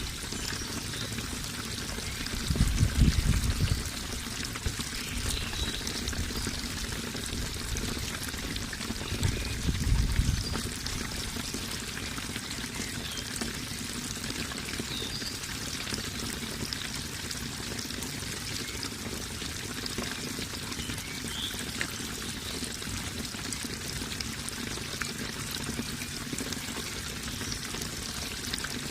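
Steady splashing, trickling water, as of a small stream or waterfall, with two brief louder low rumbles about three and ten seconds in.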